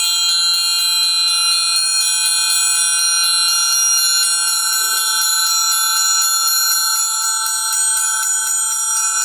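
Amplified orchestral triangle struck in a fast, steady tremolo, a dense shimmer of ringing overtones held at an even level. The player's damping hand holds the metal at one point, which picks out which overtones sound.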